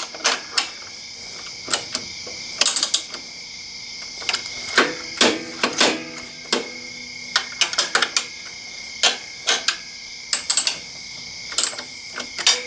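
Socket ratchet and combination wrench working the foot peg mount's bolt and nylock nut: scattered metal clicks and taps, some in short quick runs, as the nut is backed off just a hair because it was a little too tight. A faint steady high hum runs underneath.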